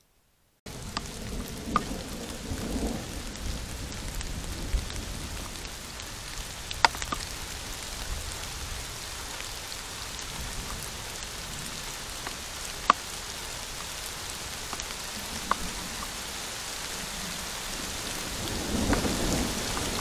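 Heavy rain falling on a trail camera, a steady hiss that starts suddenly about a second in, with a few sharp clicks of drops striking the camera and low rumbles about two seconds in and again near the end.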